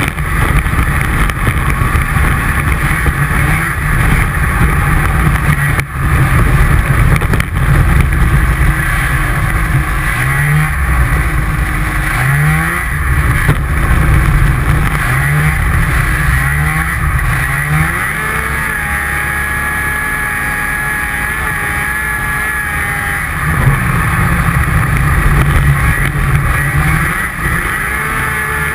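Snowmobile engine running under throttle, its pitch rising and falling as the rider speeds up and eases off. It runs steadier and a little quieter for a few seconds about two-thirds through, then louder again.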